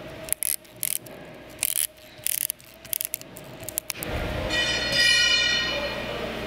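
Metal clicks and rattles from a piston ring compressor and its tool being worked around a piston, irregular over the first few seconds. About four and a half seconds in comes a clear metallic ringing that lasts about a second and a half.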